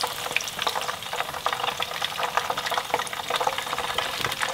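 Hot cooking oil in a frying pan sizzling with a steady, dense crackle as fried pieces are lifted out with a slotted spatula.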